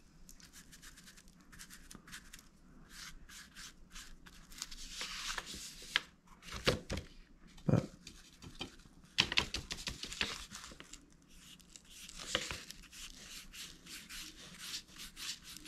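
Stiff bristle paintbrush scratching in quick strokes over a rough, textured surface while paint is dry-brushed on, with short swishes as the brush is reloaded from a plastic plate. The strokes come in bursts of several at a time, with pauses between.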